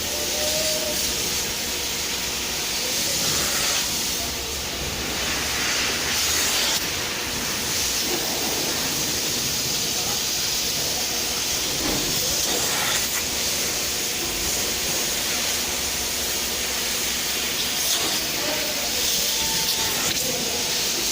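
Steam cleaning machine jetting steam: a loud, steady hiss.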